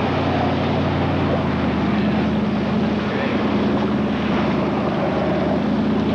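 Motorboat engine running steadily at speed, a low drone under the rushing hiss of wind and water spray.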